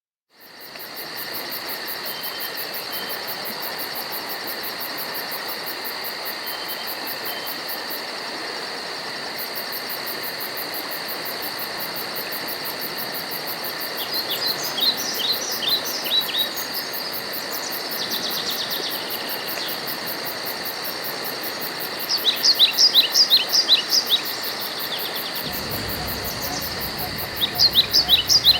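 A steady chorus of crickets and other insects, with a fast high-pitched pulsing trill over a continuous shrill drone. In the second half a bird gives three bouts of quick, short, falling chirps.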